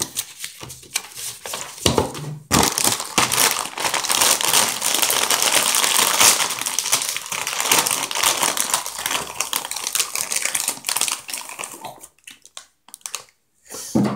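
A chip bag crinkling as it is handled, a dense, loud crackle that thins to a few scattered crackles near the end.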